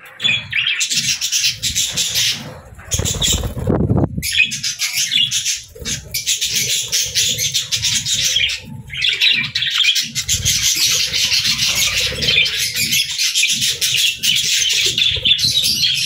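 A group of budgerigars chattering and warbling in quick, continuous high chirps, with brief pauses around four and nine seconds in. A short low rustling noise comes about three seconds in.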